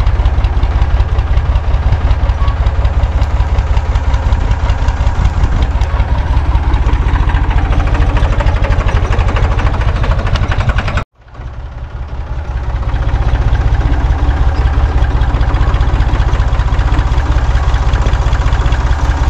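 An old farm tractor's engine running close by with a steady, rapid chugging as the tractor works its rear blade against a tree stump. About eleven seconds in the sound cuts out abruptly, then builds back up over a couple of seconds.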